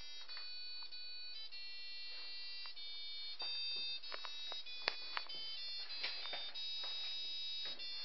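Fisher & Paykel top-loading washing machine singing: several high steady tones at once, stepping from pitch to pitch like a tune. A couple of sharp clicks come about halfway through.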